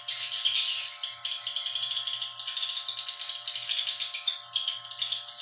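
Dense, continuous rapid twittering chirps of swiftlets over a steady electrical hum.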